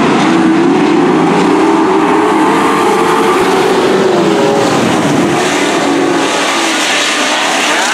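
A field of dirt-track race trucks running together, engines revving, with the pitch rising and falling as trucks go by.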